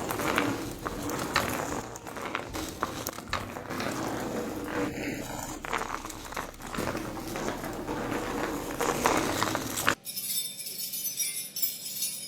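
Crackling, rustling noise full of small clicks, then an abrupt cut about ten seconds in to jingling bells.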